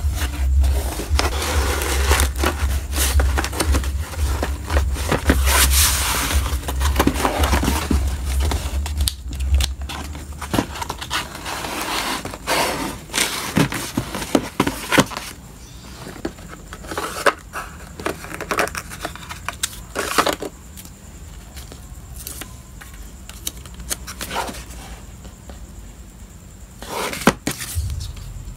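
Hands handling a corrugated cardboard mailer box and paper stickers: rubbing, scraping and crackling of cardboard and paper, dense for about the first ten seconds, then scattered taps and clicks as the box is closed and handled.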